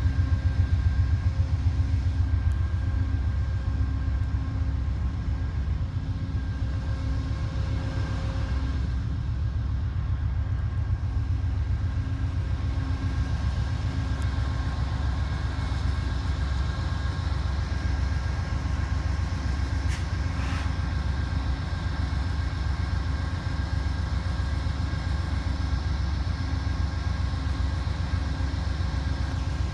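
An engine idling steadily: a low rumble with a fine rapid pulse and a faint steady whine over it.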